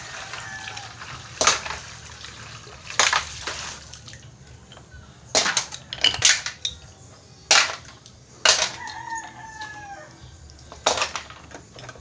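Spider conch shells knocking and clattering against each other and the metal pot as they are rinsed by hand under running water, a sharp knock every second or two over the steady splash. A rooster crows once in the background, a long, slightly falling call about nine seconds in.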